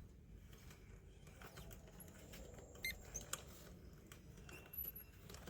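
A few faint, scattered clicks and taps over low background noise, the loudest about three seconds in.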